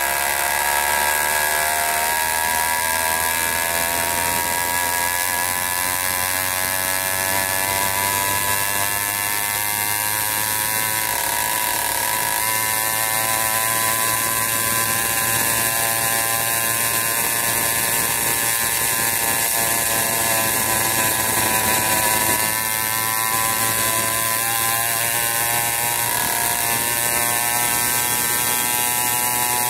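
80cc PK80 two-stroke motorized-bicycle engine buzzing at high revs under way. Its pitch rises as it speeds up in the first couple of seconds, then holds steady with a few small dips and rises.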